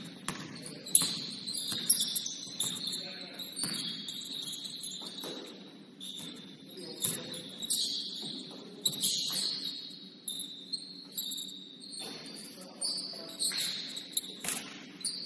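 Basketball game: sneakers squeaking again and again on the court, with sharp knocks of the ball bouncing now and then over a low murmur of voices.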